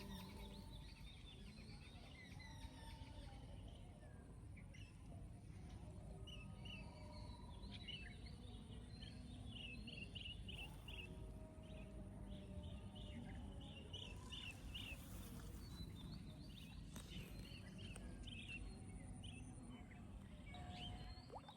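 Faint outdoor ambience: small birds chirping in short, repeated calls over a low steady background noise.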